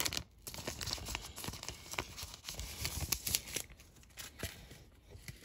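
Clear plastic zip-top bag crinkling and rustling as it is handled, in irregular bursts of small crackles that die down near the end.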